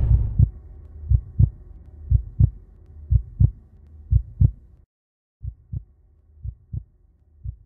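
Heartbeat sound effect: slow paired thumps, about one beat a second, over a faint hum. It cuts out for about half a second near the middle and comes back fainter.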